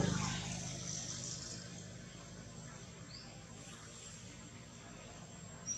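A motor vehicle passing, its engine fading away over the first second or two, then a quiet outdoor background with insects buzzing. A short, high rising chirp about three seconds in and another brief high chirp near the end.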